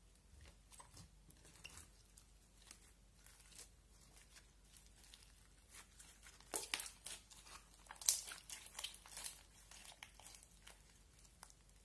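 Clear slime packed with colourful candy flakes being squeezed and folded by hand, giving a run of small crackles and pops. The crackling thickens and is loudest about two-thirds of the way through.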